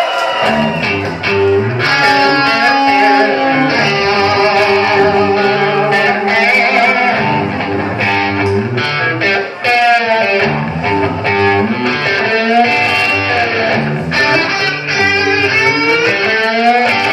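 Live hard-rock band playing an instrumental guitar passage: electric guitars carry wavering, bent lead lines over bass and drums, with no vocals.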